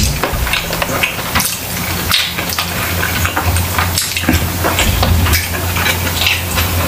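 Close-miked eating sounds: wet chewing, smacking and crackling clicks as mouthfuls of sisig and rice, eaten by hand, are chewed. Near the end comes a sip of broth from a glass bowl.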